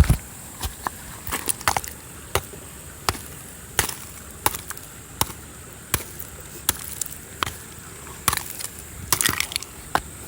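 Footsteps walking at a steady pace, one sharp step about every 0.7 seconds.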